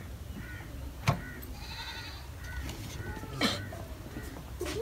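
Goats bleating repeatedly in short wavering calls, with three sharp knocks, the loudest about a second in.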